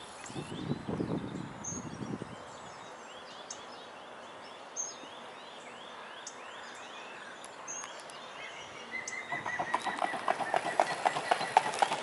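Mute swan running across the water to take off: its feet slap the surface and its wings beat in a quick, regular pattering that starts about three-quarters of the way in and grows louder. Songbirds sing faintly throughout.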